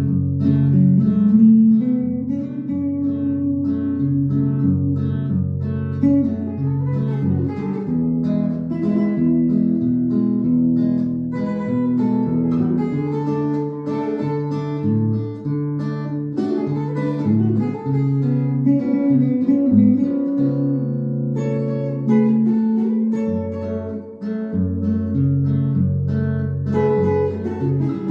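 Acoustic guitar playing a plucked melodic solo over a steady line of bass notes, played as timing practice for the song's interlude.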